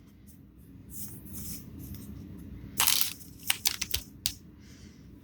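Foil Pokémon booster pack being torn open and crinkled: one sharp rip about three seconds in, then a few quick crackles of the wrapper.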